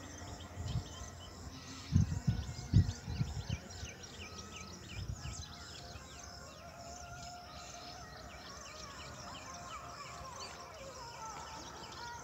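Many birds chirping and calling in quick short notes, with a few loud low thumps a couple of seconds in.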